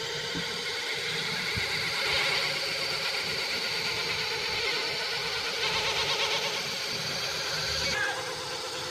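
Brushless motors and propellers of an ARRIS FPV250 racing quadcopter spinning while it sits on the ground, giving a steady whine. It gets louder about two seconds in as the throttle is raised, then drops back shortly before the end.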